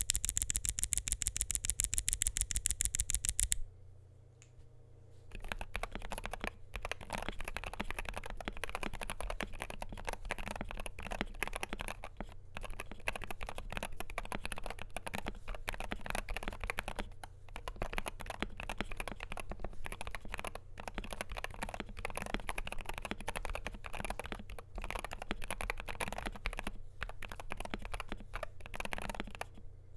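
Typing on a Wooting 60HE keyboard with Lekker L60 magnetic Hall-effect switches, stainless steel plate and PBT doubleshot keycaps: a fast, evenly spaced run of clicks for the first three and a half seconds, then after a short pause a steady stream of irregular keystrokes.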